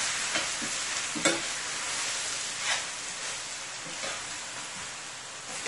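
Chicken pieces sizzling in hot oil in a stainless-steel skillet while a metal spoon stirs and tosses them. A few short scrapes and knocks of the spoon against the pan sound over the steady sizzle.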